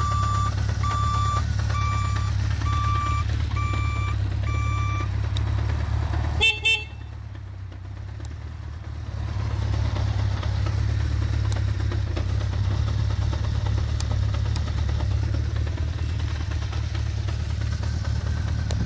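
1978 Honda CB550K's air-cooled inline-four idling steadily while an electronic turn-signal beeper beeps evenly, about three beeps every two seconds, stopping about five seconds in. About six and a half seconds in, the horn gives two short honks.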